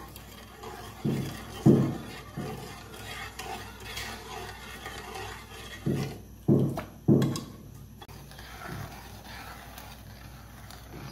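A spoon stirring thin tamarind chutney in a metal pan, clinking against the pan's side with several knocks, the loudest about two seconds in and a cluster around six to seven seconds in.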